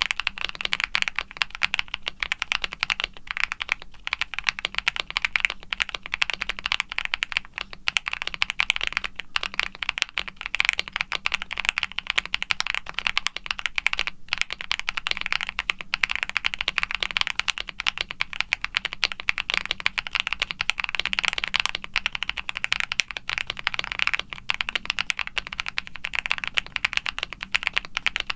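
Rapid, continuous typing on a CreateKeebs Luminkey75 aluminium mechanical keyboard with a polycarbonate plate and factory foam dampening. It is fitted with lubed Akko Creamy Lavender Pro tactile switches and GMK doubleshot ABS keycaps, and the keystrokes come as dense, overlapping clacks.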